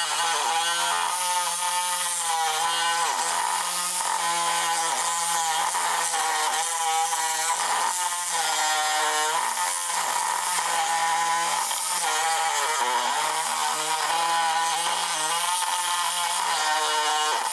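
A DeWalt 20V cordless reciprocating saw with a bi-metal blade cuts into the hardened triple-layer steel Catstrap strap and clamp on an exhaust pipe. The motor whine rises and falls in pitch again and again as the blade chatters through the steel. The blade is wearing dull on the hardened steel.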